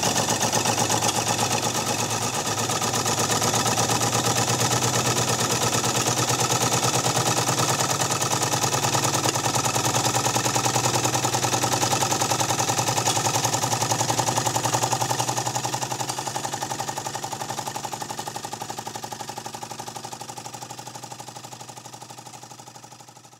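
Markie 1:10 scale live-steam plough engine model running under steam, a steady, rapid, even beat of exhaust and working motion. It fades out gradually over the last several seconds.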